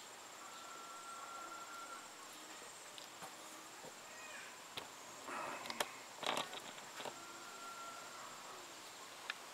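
Steady high-pitched chorus of insects such as crickets, with brief rustling noises about five to six and a half seconds in.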